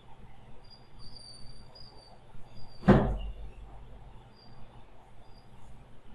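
A single sharp knock about three seconds in, the loudest sound, over a faint low hum, with a few faint high-pitched chirps around it.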